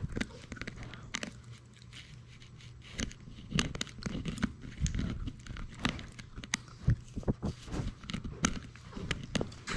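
Irregular close knocks, clicks and scuffs as a Labrador Retriever puppy noses and mouths the camera, quieter for a moment about two seconds in.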